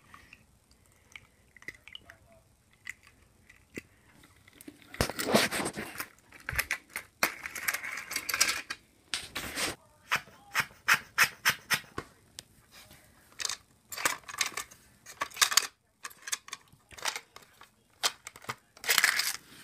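Plastic toy car and playset pieces being handled, a run of irregular sharp clicks and clatters with short busier stretches.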